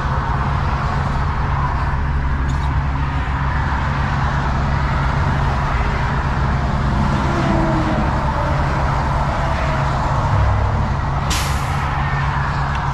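Diesel engine of a Volvo VNL semi-truck running low and steady, heard from inside the cab as the truck creeps along the shoulder. Near the end comes a short hiss of air from the air brakes.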